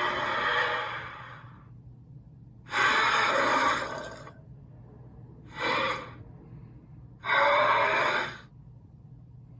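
Wolf creature vocal sound effect: four harsh, breathy huffs or snarling exhales, the third one short, with pauses between them.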